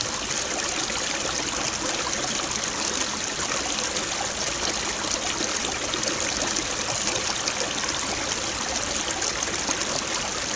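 Steady rushing and trickling of a small stream, an even noise that does not change.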